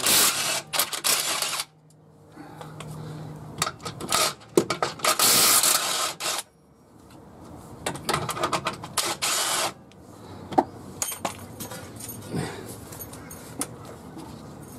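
AEG cordless impact wrench hammering in three bursts of a second or two each as it undoes a nut on the front suspension. This is followed by scattered light metallic clicks and knocks as the loosened parts are handled.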